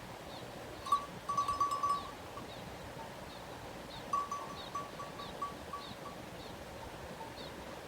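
Small bells on grazing sheep clinking in short runs, about a second in and again from about four to six seconds in. A faint high chirp repeats about every half second throughout.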